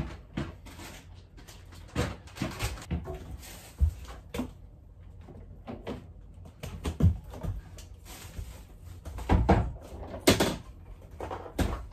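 Kitchen cupboard doors and drawers opening and closing, with scattered knocks, clicks and rustling as things are taken out and handled; the loudest knocks come about nine to ten seconds in.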